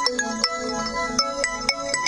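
Samsung Galaxy Tab A 8.0 ringtone playing: a quick, bright melody of struck notes, about four a second.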